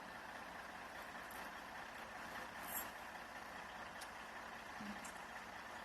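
Faint, steady hum of a heavy vehicle's engine idling, with no change in speed.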